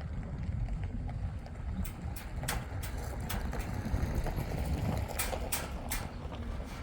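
Wind rumbling on the microphone, with a few sharp clicks or knocks around the middle.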